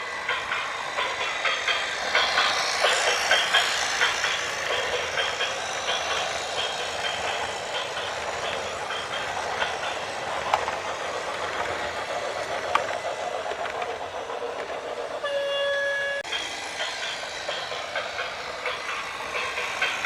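Continuous rattling, clattering noise of a heavy vehicle or machinery, with one horn blast lasting about a second roughly three quarters of the way through.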